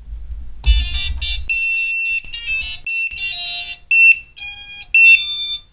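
Brushless motors of a micro FPV quad, driven by BLHeli_32 ESCs, beep out a short programmed tune of stepped notes as the battery is connected. A low bump of handling from the battery lead comes just before the notes start.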